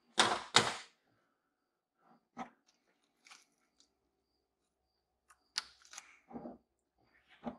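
Hands handling parts and tools on a car engine's intake around the throttle body. There are two short scraping noises at the start, then scattered light clicks and rustles.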